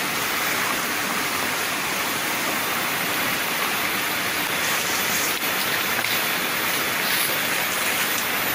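Steady rushing hiss of flowing river water, with a few faint brief rustles of leaves about halfway through as plants are pulled from the bank.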